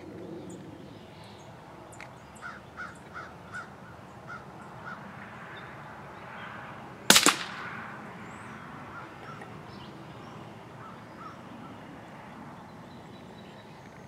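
A single rifle shot from a .22 rimfire (Ruger Precision Rimfire), a sharp crack about halfway through with a short tail, by far the loudest sound. Before it, a bird calls several times in quick succession over a faint outdoor background.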